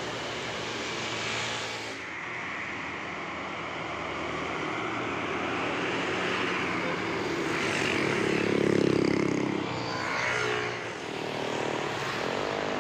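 A heavy road vehicle's engine, most likely a bus, running as it climbs the hill and passes. It grows louder to a peak about nine seconds in, then drops briefly.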